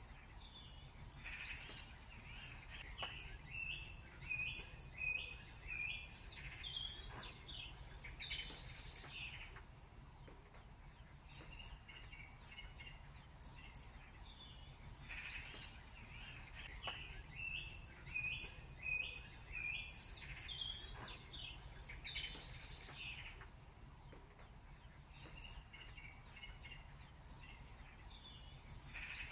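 Birdsong: clusters of high chirps and short trills. The same stretch repeats about every 14 seconds, like a looped ambience recording, over a steady low hum.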